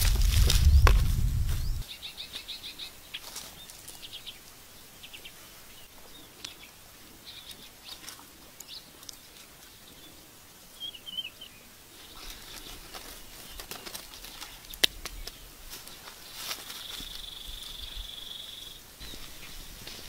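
Rustling and heavy thumps of bare feet on dry straw for the first couple of seconds, then quiet outdoor ambience with scattered bird chirps, a single sharp click, and a steady high trill lasting about two seconds near the end.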